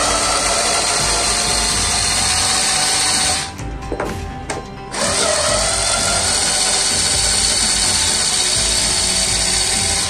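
Small corded handheld electric drill running at speed with a high whir. It cuts out about three and a half seconds in, then spins up again about a second and a half later.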